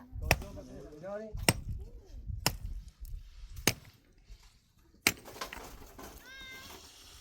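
A series of sharp, hard strikes, about one a second, such as blows on stone or wood. Between the first two strikes a wavering, meow-like cry rises and falls, and a quick run of short, high chirps comes near the end.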